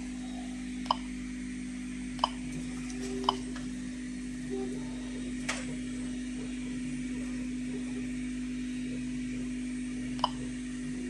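A dosimeter's Geiger counter clicks sporadically, about five single irregular chirp-clicks in eleven seconds, counting natural background radiation once the test source has been removed. A steady low hum runs underneath.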